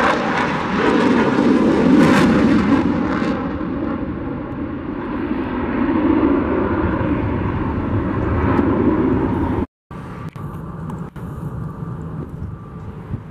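Jet airliner engine noise, loud and dense at first with the high hiss dying away after about three seconds. It breaks off suddenly near ten seconds in, then continues as fainter, steadier engine noise.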